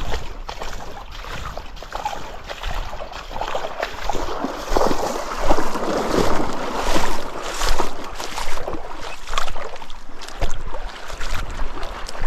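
Creek water rushing and splashing, with short sharp splashes that come thicker and louder in the middle.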